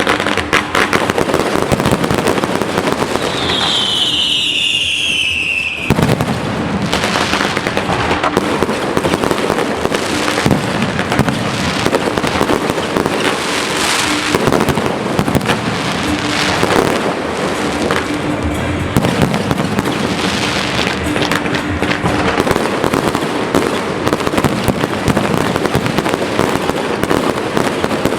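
Fireworks display: a continuous barrage of crackling and banging firework bursts, with a single falling whistle from a whistling shell about four seconds in.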